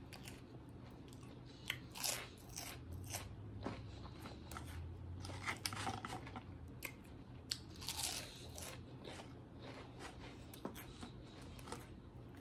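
Fried pork rinds being bitten and chewed, with irregular crisp crunches.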